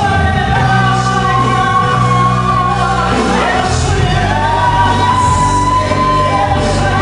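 Live gospel worship band playing with singing. A voice holds one long high note from about four seconds in until past six.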